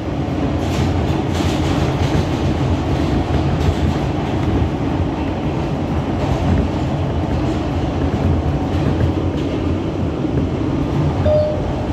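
R160B subway car running at speed through a tunnel, heard from inside the car: a steady, loud rumble of wheels on rail with scattered light clicks.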